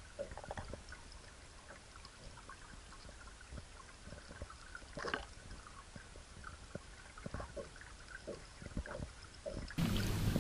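Underwater sound picked up by a submerged camera: scattered clicks, pops and trickling water over a low rumble. Near the end it cuts to a louder, steady low hum of a small boat's outboard motor idling.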